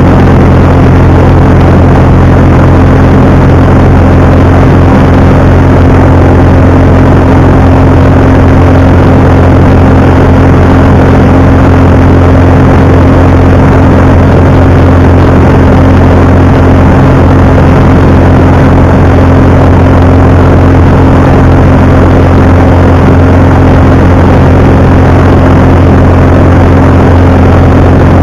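Jabiru light aircraft's four-cylinder engine and propeller droning steadily in flight, heard loud inside the cockpit.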